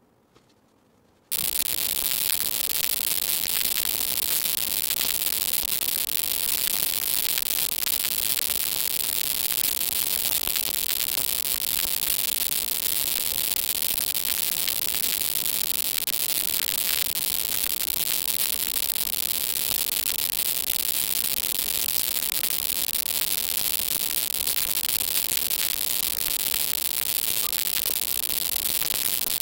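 Steady, even hiss like static, starting abruptly about a second in and holding unchanged.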